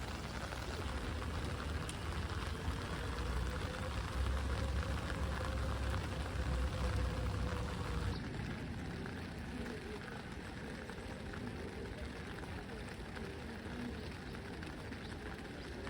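Steady patter of rain, with a low rumble under it for the first half; the background changes abruptly about halfway through.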